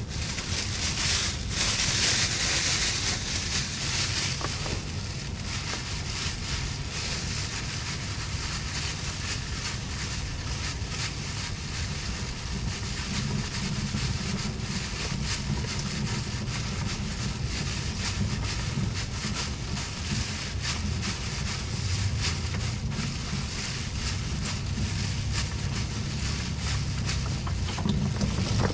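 Plastic bag rustling and crinkling as it is pulled over a gloved hand, loudest a second or two in, over a steady low rumble of wind on the microphone.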